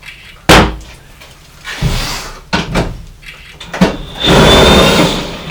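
Mechanical work on a truck's engine: a sharp metal knock, then scrapes and clicks of tools and parts, and near the end a harsh, hissing burst of about a second with a faint thin whistle in it.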